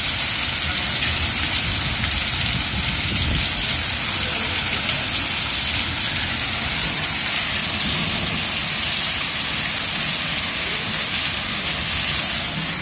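Hail and rain falling onto tiled paving: a steady, dense patter of many small impacts.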